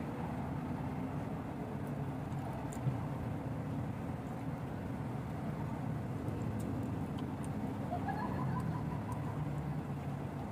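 Steady low rumble of distant road traffic, with a brief rising tone about eight seconds in.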